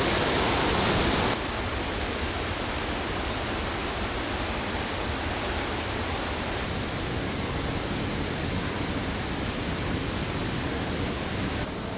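Steady roar of Victoria Falls plunging into its gorge. About a second in it drops abruptly to a quieter, steady rushing.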